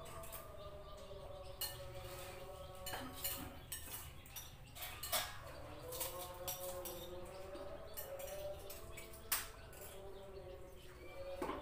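Plates and eating utensils clinking now and then as people eat, a scatter of sharp clicks over a faint wavering tone in the background.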